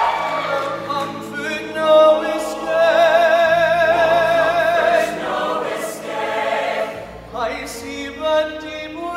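Show choir singing live, with a long held note with vibrato in the middle, over a steady low accompaniment.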